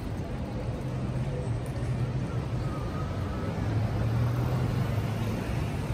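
City street ambience: a steady low hum under general outdoor noise.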